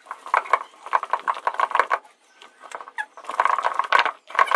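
A hand-turned stone wet grinder (aattukal): the cylindrical stone pestle rolls and scrapes round the stone basin, grinding moong dal with a fast, gritty rattle of many small strokes. It stops for about a second midway, then starts again.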